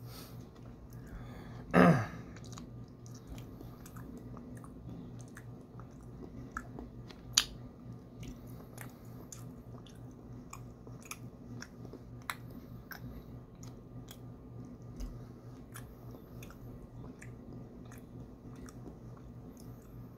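A person chewing soft taro fudge close to the microphone, with many small wet mouth clicks. About two seconds in comes one short, loud voiced sound that falls in pitch, and a low steady hum runs underneath.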